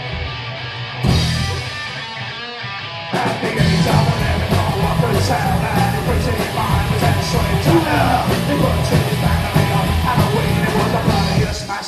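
Live psychobilly band playing: upright double bass, electric guitar and drums. A sparser intro gives way to the full band about three seconds in, with a vocal over it.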